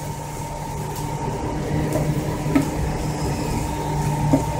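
Steady low mechanical hum, with a few faint ticks around two seconds in and again near the end.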